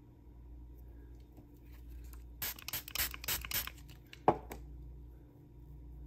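Seashells being handled: a short run of scratchy rustling and clicks about two and a half seconds in, then one sharp click.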